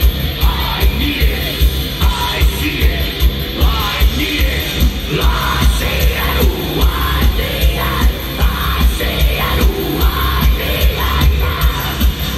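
Industrial metal band playing live through a large PA system: a heavy, pounding kick drum about two to three beats a second under distorted guitars and vocals, recorded from within the audience.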